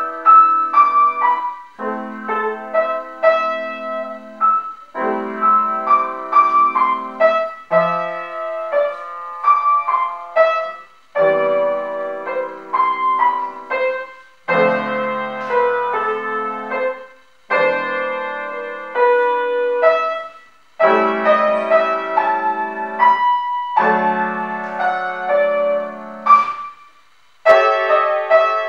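Solo piano playing a slow piece in short phrases of a few seconds each, with brief pauses between them.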